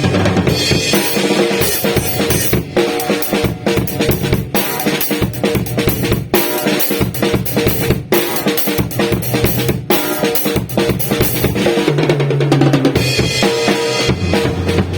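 TAMA acoustic drum kit played in a dense, continuous groove: bass drum, snare and cymbal hits in quick succession.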